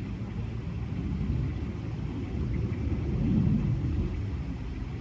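Low, uneven rumble on the microphone, swelling a little about three seconds in.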